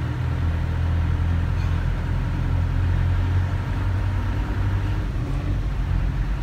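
Steady low rumble of a van's engine and road noise, heard from inside the cabin as it moves slowly through street traffic.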